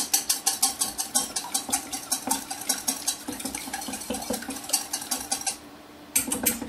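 Whisk beating eggs and cream in a small bowl, with quick, even clicks against the bowl at about six strokes a second. The whisking stops about five and a half seconds in, then a few more clicks follow near the end.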